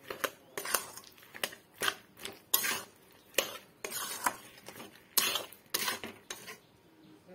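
A metal spatula scraping and knocking against a metal kadai while stirring thick, sticky jujube pickle. The strokes come unevenly, about two a second.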